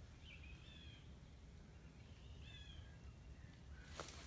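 Near silence with a few faint, short, high chirping calls that glide in pitch, and one sharp click about four seconds in.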